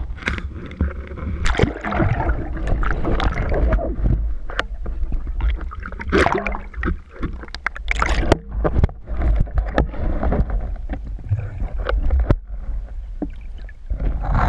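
Water sloshing and splashing around a speargun-mounted camera as it breaks the surface and dips under again. Irregular splashes and knocks sound over a constant low rumble.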